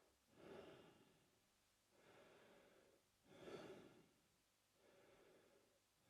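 A man breathing slowly through his mouth. Faint, with louder and softer breaths taking turns, about one full breath cycle every three seconds.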